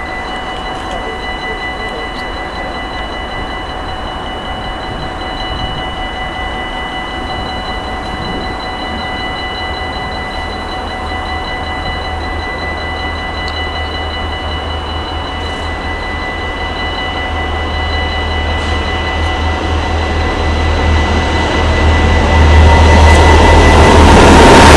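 Level-crossing bell ringing steadily while a freight train headed by class 6400 diesel-electric locomotives approaches. The low engine rumble grows louder, and the lead locomotive passes close by near the end.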